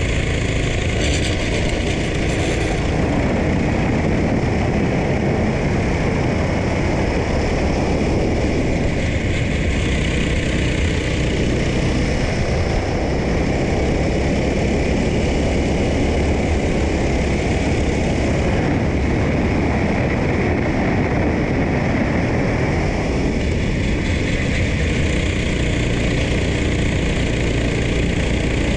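Racing go-kart engine running at race pace through a lap, its note easing and picking up again with the throttle through the corners, over a constant rush of wind.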